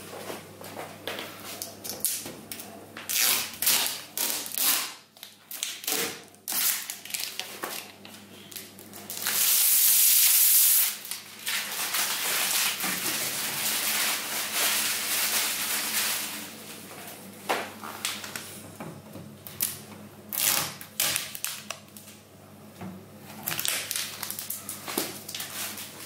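Protective plastic film being peeled off a new front-loading washing machine and crumpled, in a series of short rustling, crinkling strokes, with one long loud peel about ten seconds in.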